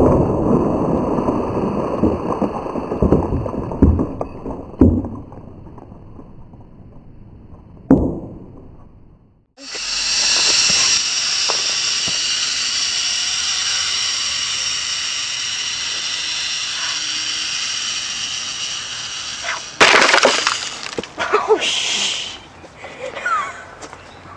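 A small explosive charge buried in dirt goes off with a sharp bang, followed by a few seconds of dirt and debris pattering down. Later a steady hiss runs for about ten seconds, then a second sharp bang.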